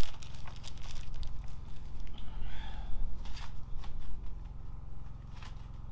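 Scattered light clicks and taps of hands working small metal hardware on a chimney support band, over a steady low hum.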